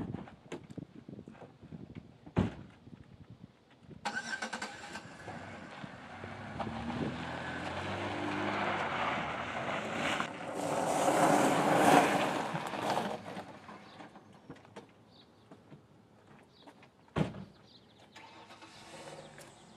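A car's engine starts about four seconds in and the car drives off down a gravel road, its sound building to loudest around eleven to twelve seconds and then fading away. A sharp thump comes about two seconds in, and another one near the end.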